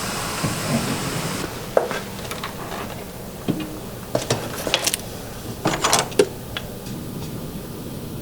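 A power tool runs steadily and cuts off about a second and a half in, followed by scattered sharp clicks and knocks.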